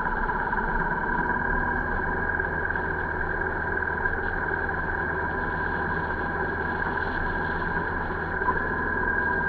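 Motorcycle engine and wind noise heard from a camera mounted on the bike, a steady drone at an even cruising speed.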